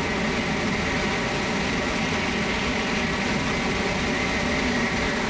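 N700-series Tokaido Shinkansen passing through the station at high speed: a steady, loud rush of air and wheel-on-rail noise as the train's cars stream past.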